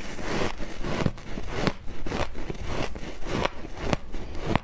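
Refrozen shaved ice being bitten and chewed close to the microphone: many sharp, irregular crunches and crackles, several a second.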